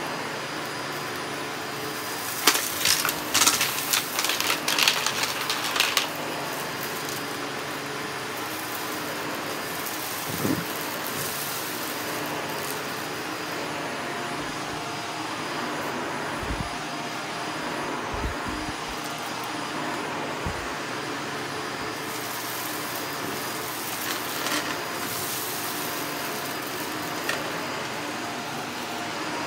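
Shark vacuum cleaner running steadily on carpet, with a burst of rattling clicks for a few seconds near the start and a few short low thumps later on.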